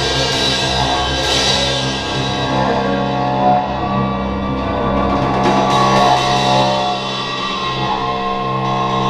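Background music: a rock track with guitar and drum kit.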